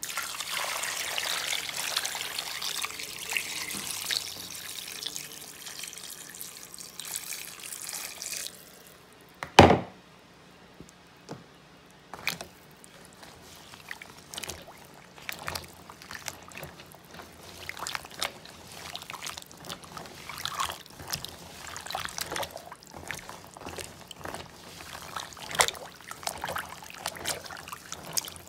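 Water pouring for about eight seconds, then one loud knock, followed by scattered light clicks and rattles.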